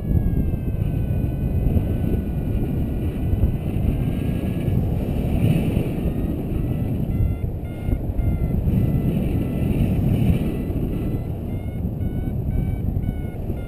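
Wind rushing over the microphone of a paraglider in flight, with a flight variometer sounding: first a steady tone sliding slowly down, then, from about halfway, short beeps that come faster near the end, the variometer's signal of climbing in rising air.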